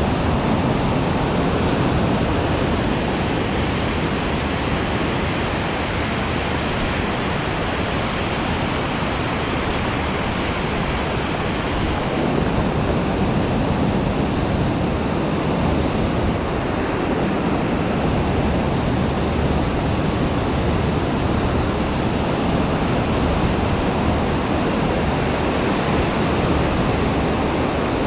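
Surf breaking and washing up a sandy beach, a steady rushing noise, with wind on the microphone.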